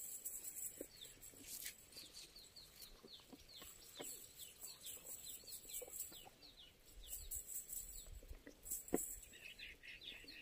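Faint bird chirps, short quick downward notes repeated several times a second, over a steady high hiss. Small scattered clicks and taps come from handling the cast net and fish on the pebbles, with a sharper tap about nine seconds in.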